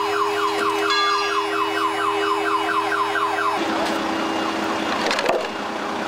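Electronic siren sweeping upward rapidly and repeatedly, about four times a second, over a steady engine hum. It cuts off about halfway through, leaving the hum and general scene noise with a single knock near the end.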